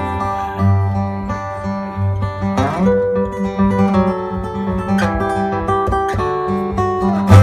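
Steel-string acoustic guitar played solo, fingerpicked melody notes ringing over a held low bass note. A strummed chord comes about two and a half seconds in, and a louder one right at the end.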